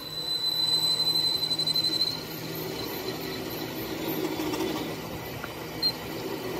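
Metalworking machinery running steadily, with a high whine over the first two seconds and a short click near the end.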